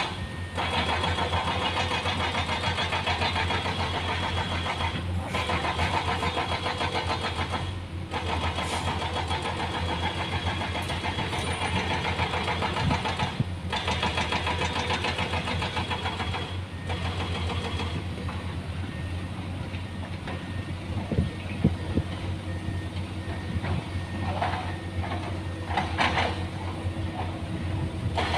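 Heavy earthmoving machinery, an excavator and dump truck working, giving a continuous diesel engine drone with a steady low hum. The sound drops out for a split second a few times, and there are some louder irregular bursts near the end.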